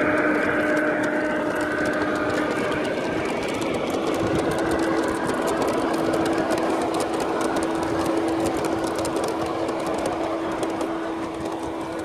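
G-scale model freight train rolling past on garden-railway track, its wagon wheels rattling and clicking rapidly over the rail joints, over a steady whine.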